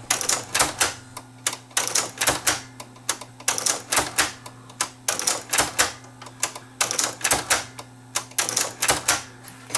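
Rapid, irregular clicking and scratching in clusters as a screwdriver blade scrapes at oxidised leaf-switch contacts in a cassette deck mechanism, over a faint low steady hum. The contacts are badly oxidised from years of disuse.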